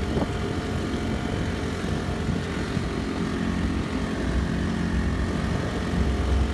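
Honda GX35 35cc single-cylinder four-stroke engine on a small outboard drive running steadily under way, pushing the boat along.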